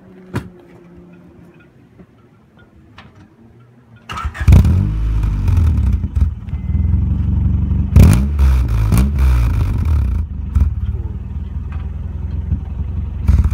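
A 1989 Acura Integra's four-cylinder engine starts about four seconds in and runs loud through a carbon-fiber-tipped aftermarket muffler slipped onto the exhaust but not yet clamped, with a sharp loud burst about eight seconds in, then shuts off near the end. This is the first test start with the new muffler.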